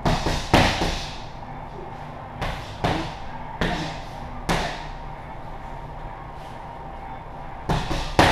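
Punches and kicks smacking into Muay Thai pads, each strike echoing briefly: two at the start, four more spaced roughly half a second to a second apart, then a pause and a quick flurry near the end.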